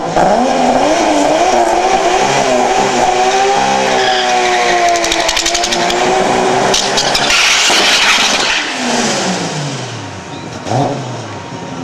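Toyota Supra engine during a burnout: it revs up sharply and is held at high revs, the pitch wavering while the rear tyres spin. About eight and a half seconds in the revs fall away, and there is one short blip of the throttle near the end.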